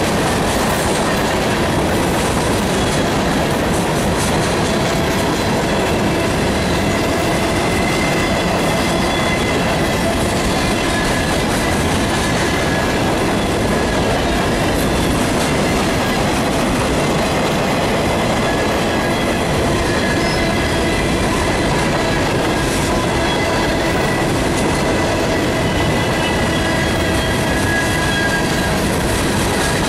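Freight cars of a mixed freight train (covered hoppers and boxcars) rolling past close by. A steady, loud rumble of steel wheels on rail, with clatter and thin squealing tones from the wheels.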